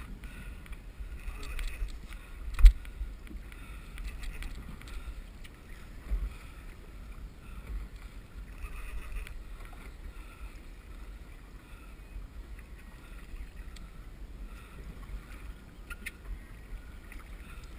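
Wind rumbling on the camera microphone and water sloshing against a kayak at sea, with one sharp knock about two and a half seconds in.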